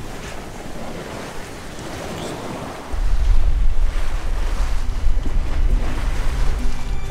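Sea waves washing around a sailboat under way, with wind. About three seconds in, heavy wind buffeting on the microphone sets in as a loud low rumble.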